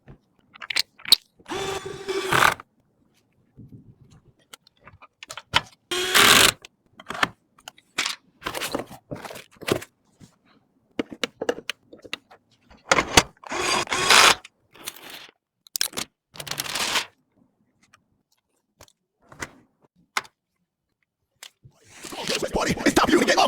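Computer parts and packaging being handled during a PC build: scattered clicks, taps and rustling scrapes with short pauses between them. A noise swells over the last two seconds.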